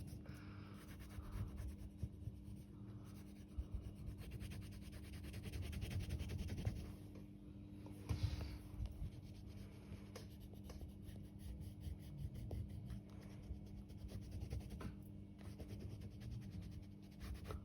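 Faint scratching and rubbing of a colour being stroked back and forth on drawing paper, filling in an area, over a low steady hum.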